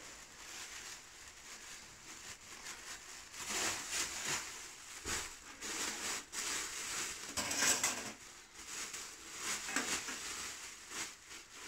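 Thin plastic bag rustling and crinkling in irregular bursts as it is handled.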